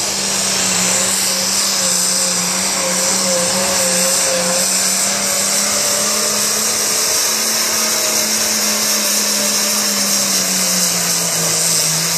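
International Harvester pulling tractor's diesel engine running flat out under load as it drags a weight-transfer sled, a loud steady high drone with a hiss above it. Its pitch dips slightly near the end.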